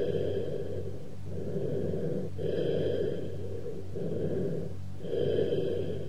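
Cavernous bronchial breath sounds on chest auscultation: low-pitched, hollow breathing in repeated in-and-out cycles, over a steady low hum. Cavernous breathing is the sign of an underlying lung cavity with irregular walls or an open pneumothorax.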